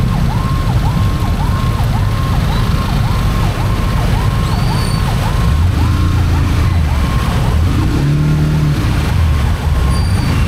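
An emergency-vehicle siren in a fast yelp, each cycle a quick sweep down and back up, about two to three a second, growing fainter in the last few seconds. Under it is a steady low rumble of engines and traffic.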